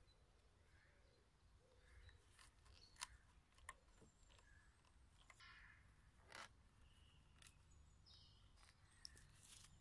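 Near silence, with faint scattered rustles and clicks of cordage being wrapped and pulled tight around a wooden log joint, and a few faint bird chirps.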